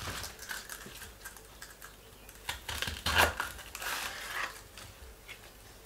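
A kitchen knife slicing lengthwise through heads of bok choy on a wooden chopping board: a series of short crisp crunches as the blade cuts through the stalks, the loudest about three seconds in.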